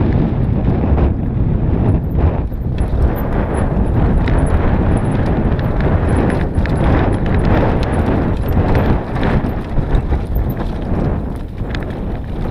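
Mountain bike rattling down a rocky dirt singletrack: tyres crunching over loose stones and the frame and chain clattering, over a loud steady rumble of riding noise.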